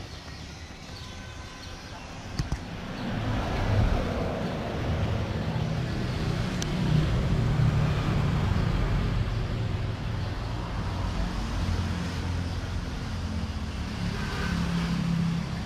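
Outdoor background of road traffic: a low rumble of vehicles that grows louder about three seconds in and stays up.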